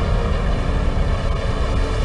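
Loud, steady low rumble with faint sustained tones above it and no distinct impacts.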